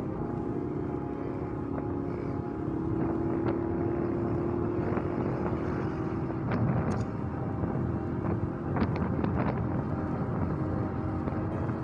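Honda TMX 125 Alpha single-cylinder motorcycle engine running under way, its steady tone rising slightly as the bike speeds up, with wind rushing over the helmet-mounted microphone. A few brief knocks come about nine seconds in.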